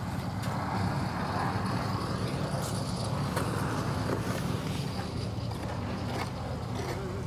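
Portable concrete mixer's engine running steadily, with a few short knocks on top.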